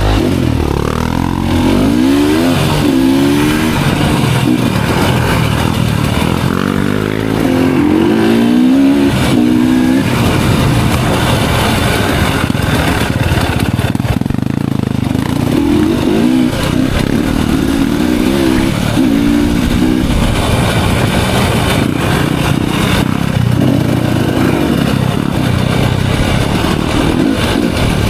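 Enduro dirt bike engine being ridden on a trail, its pitch climbing and dropping again and again as the rider accelerates and shifts.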